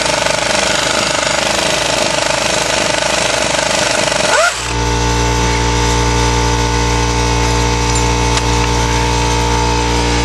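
A power tool, most likely an impact wrench, hammering steadily for about four and a half seconds, then stopping with a short rising whine. A steady machine hum runs underneath the whole time.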